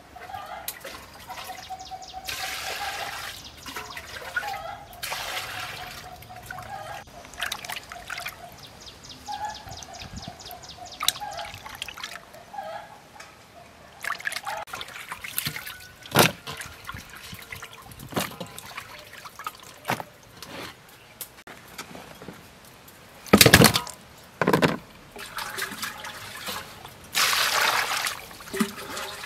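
Water splashing and sloshing in a metal basin as hands rub and turn whole river fish to wash them. There are two louder splashes about two thirds of the way through.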